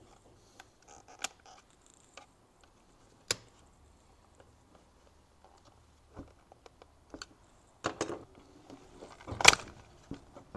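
Plastic trim clips on a BMW steering wheel clicking and snapping as they are pried loose with a small screwdriver: a few sharp clicks spaced out, then a cluster and the loudest snap near the end as the trim pulls free.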